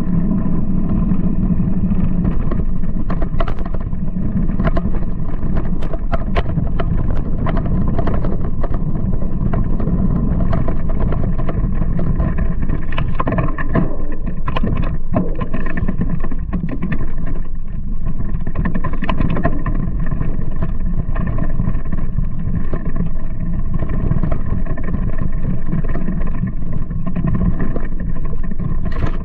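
Giant Talon mountain bike on Michelin Wild AM2 tyres riding a rough dirt trail, heard from a bike-mounted camera: a constant loud rumble of tyre and wind noise on the microphone, with frequent knocks and rattles as the bike goes over bumps.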